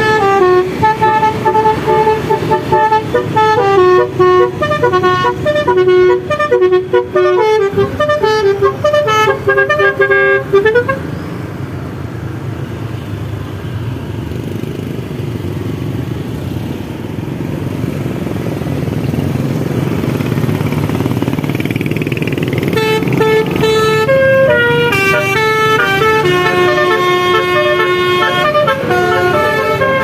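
Telolet horn, a car's set of multi-tone air horns played as a tune, tooting a melody in quick stepped notes for about the first ten seconds. It then gives way to engines and passing traffic, and the horn tune starts again a little over twenty seconds in.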